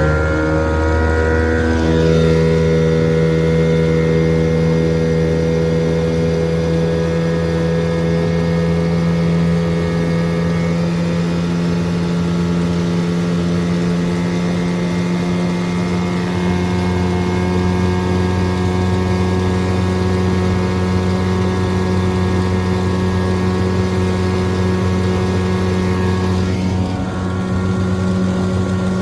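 1979 Evinrude 9.9 two-stroke twin outboard motor running at full throttle. Its pitch settles within the first couple of seconds, then it holds a steady, loud drone. The freshly tuned engine is running smoothly under load.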